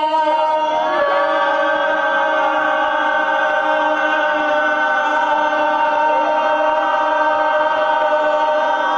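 Many voices holding one long, steady shout of "yaaaam", the drawn-out first half of a Chinese banquet "yam seng" toast. The shout grows fuller about a second in.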